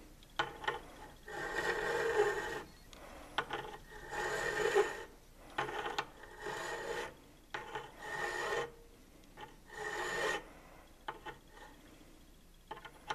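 Hand file rasping across the steel end of a ball screw shaft, cutting a flat for a motor-coupler set screw to seat on: about eight strokes, roughly one every second or so, stopping about eleven seconds in, followed by a few light clicks.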